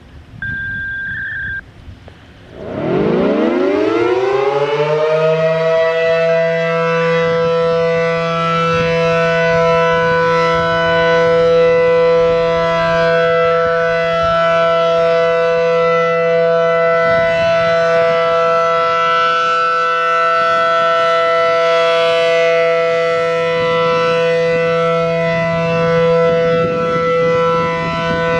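ACA Allertor 125 rotating warning siren, its motor wired in reverse, winding up from about two and a half seconds in with a rising pitch that levels off after a few seconds, then holding a steady alert tone as the horn turns, swelling gently in loudness. A short beep comes about a second in, before the wind-up.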